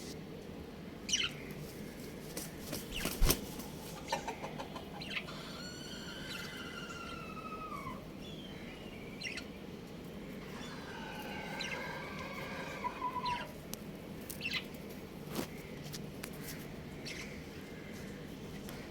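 Young rooster crowing twice, each crow a ragged, wavering call of two to three seconds. Scattered sharp clicks and knocks come between them, the loudest a few seconds in, before the first crow.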